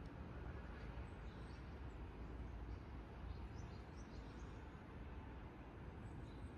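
Quiet outdoor ambience: a steady low background rumble, with a few faint, brief bird chirps scattered through the middle.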